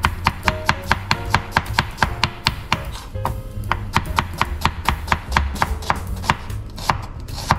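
Knife chopping an onion on a cutting board, in quick, even strokes about four or five a second.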